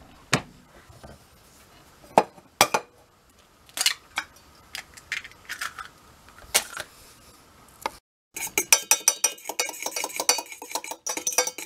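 A few separate knocks and clinks, then, from about two-thirds of the way in, a fork beating eggs for an egg wash in a white enamel camp mug: rapid, steady metallic clinking against the mug.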